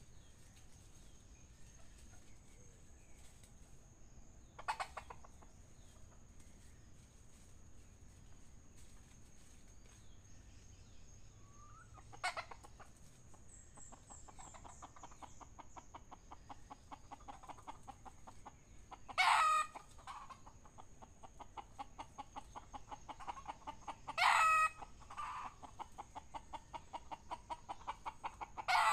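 Red junglefowl clucking in a fast run of short notes through the second half, with five short, loud crow-like calls, about 5, 12, 19, 24 and 29 seconds in.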